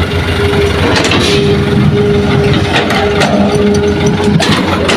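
Hitachi hydraulic excavator and a dump truck running, a steady heavy diesel drone with an on-and-off whine, while the excavator digs and loads soil. Scattered sharp knocks and clatter come from the bucket and falling soil.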